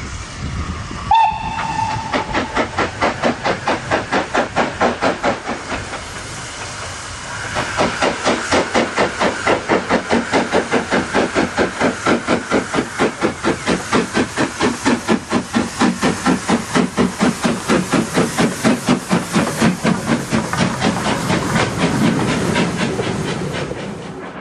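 LMS Jinty 3F 0-6-0T steam locomotive giving a short whistle about a second in, then working hard with a rapid, even chuff of exhaust beats, about four a second, with a brief lull partway through.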